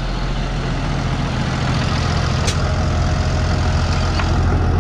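Tractor's diesel engine running steadily, with one sharp click about two and a half seconds in.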